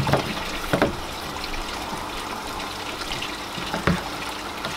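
Steady running and trickling of water circulating through a backyard aquaponics system, with a few light knocks from plastic tubing being handled against the bin.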